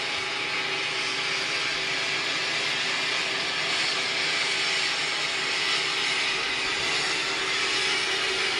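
New Holland TR99 combine running steadily while shelling corn with a 12-row corn head: a constant machine drone with a strong hiss and a steady hum.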